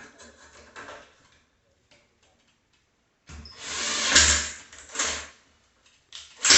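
Power drill running in short bursts: a loud burst of about two seconds some three seconds in, and another starting near the end.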